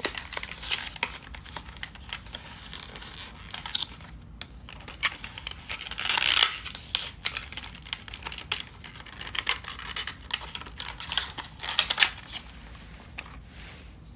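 Packaging being torn open and crinkled by hand, with many small clicks and rustles and one longer tearing stretch about six seconds in.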